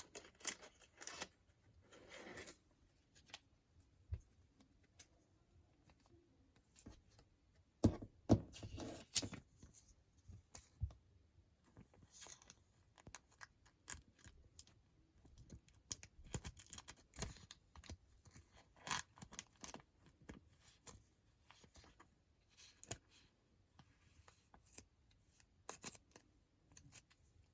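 Card and plastic card sleeve being handled: scattered rustles, scrapes and light clicks, with short pauses between them, as a trading card is slid into its protective sleeve.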